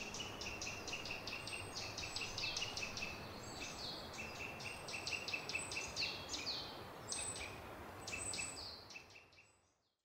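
Small birds chirping in rapid, high-pitched bursts over a steady haze of forest ambience, fading out near the end.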